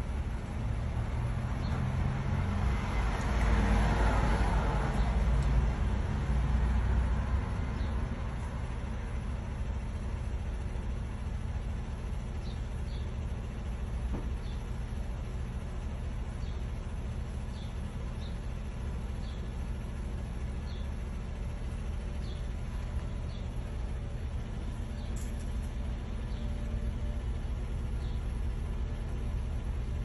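Steady low street traffic rumble, swelling as a vehicle passes between about two and eight seconds in. Through the second half, faint short high ticks repeat every second or so.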